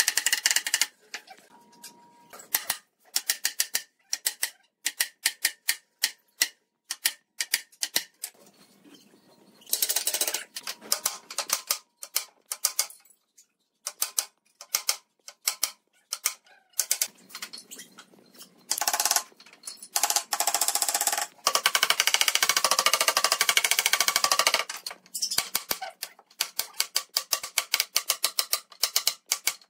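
Wooden mallet knocking dovetail joints of wooden boards together: a long run of sharp knocks at an uneven pace, at times coming very quickly.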